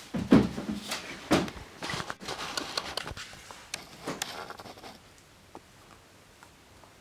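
Irregular knocks, taps and rustles of hands working a string and hook as a harmonograph pendulum is hung back up. They are loudest about a third of a second in and die away to faint ticks after about five seconds.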